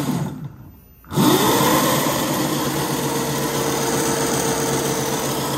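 Electric drive motor of a converted shifter go-kart, run up under throttle. A short burst winds down over the first second. About a second in, a sharp throttle application spins it up quickly to a steady high-speed whine that holds, with the gauge reading about 62 mph.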